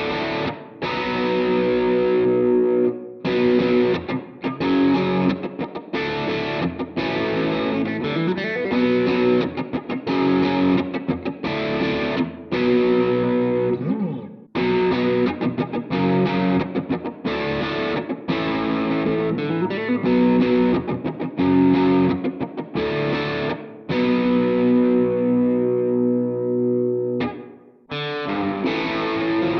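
Squier Classic Vibe '50s Telecaster played through distortion: chords struck in short, chopped rhythmic strokes with a few slides. Near the end one chord is held and rings out, then the playing starts again.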